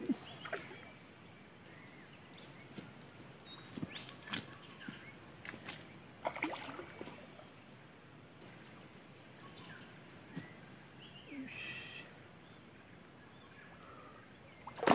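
Steady high-pitched drone of insects, with a few faint scattered clicks and knocks.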